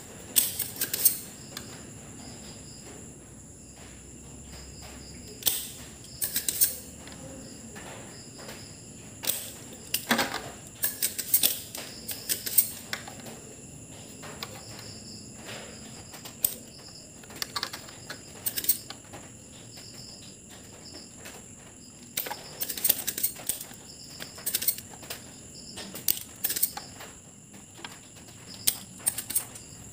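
Spring-loaded desoldering pump being cocked and fired while solder is melted off a circuit board: sharp clicks and snaps in scattered clusters, with a faint steady high whine underneath.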